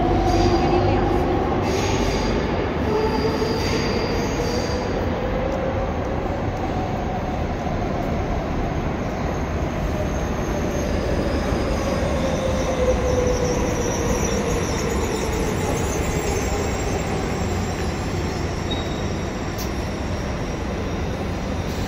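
Madrid Metro electric trains in a station: a motor whine rises in pitch over the first few seconds as a train pulls away, then a second train's whine falls slowly as it rolls in and brakes along the platform, over a steady wheel and track rumble.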